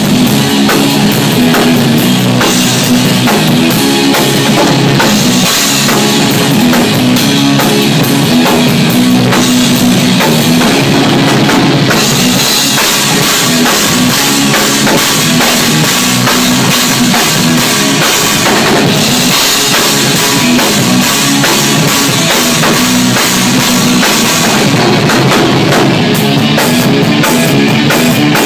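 Doom metal band playing loud: electric guitar and bass guitar over a drum kit with bass drum and cymbals.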